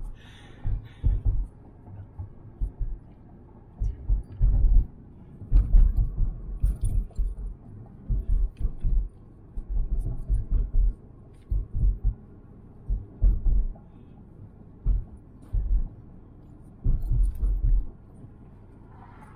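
Irregular low thumps and rumble in short bursts inside a moving car's cabin, with a faint steady hum between them.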